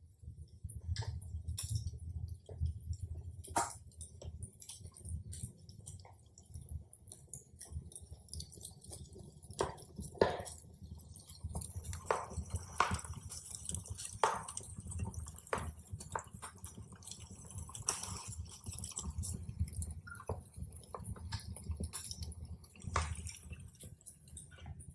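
Campfire crackling: irregular snaps and pops over a low, steady rumble.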